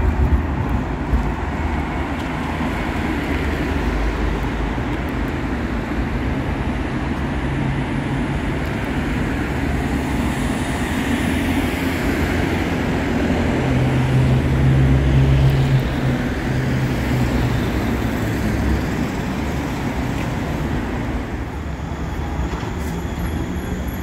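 Street traffic and city trams running on street-level tracks: a steady low rumble of passing vehicles that swells about 14 to 16 seconds in, with a tram approaching near the end.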